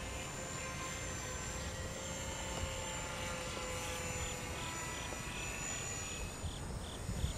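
The twin brushless electric motors and propellers of a small twin-boom P-38 Lightning-style RC model plane in flight: a steady thin whine whose pitch drifts slightly as the plane passes overhead.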